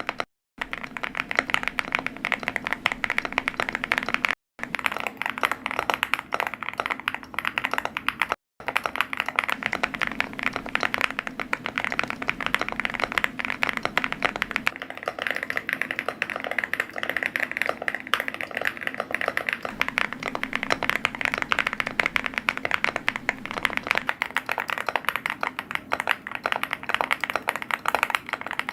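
Rapid, continuous typing on a computer keyboard, a dense stream of key clicks. It drops out briefly three times: just after the start, about four seconds in and about eight and a half seconds in, where the edited clips join.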